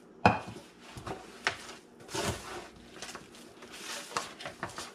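Hands kneading sticky flour-and-egg dough in a disposable aluminium foil pan: irregular crinkling of the thin foil and squishing of the dough, with a sharp knock near the start.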